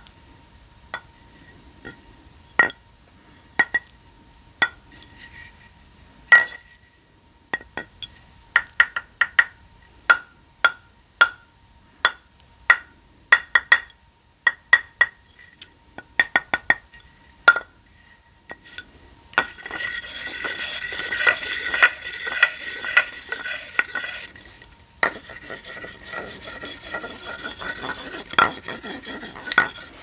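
Long fingernails tapping a hard, glassy object in single bright clinks about half a second to a second apart, then, from about twenty seconds in, scratching fast and continuously over a rhinestone mesh sheet in a dense clinking rattle, with a brief break a few seconds later.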